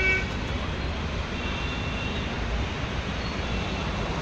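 Traffic-jam noise from idling autorickshaws, cars and buses: a steady low engine rumble. A held vehicle horn cuts off just after the start, and fainter horns sound further off about halfway through.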